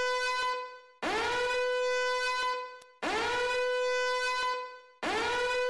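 Electronic warning alarm sounding in repeated blasts, about one every two seconds. Each blast swoops up quickly into a steady, buzzy horn-like note, holds about a second and a half, then fades.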